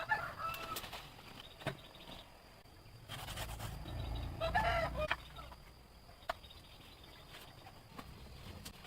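A chicken calling twice, briefly at the start and again about four and a half seconds in, with a few sharp knocks in between.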